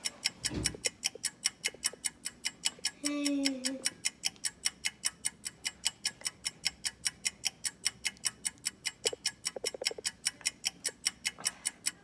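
Fast, even clock ticking, about four ticks a second. A short hummed voice tone comes in about three seconds in.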